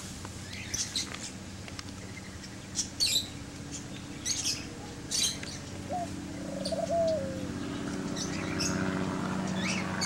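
Parakeets giving short, sharp chirps, about ten scattered through, with a lower, falling call about six seconds in, over a steady low hum.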